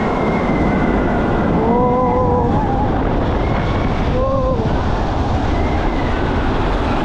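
Loud steady rushing of wind on the microphone during a ride down a slide, with a few high wavering voices calling out.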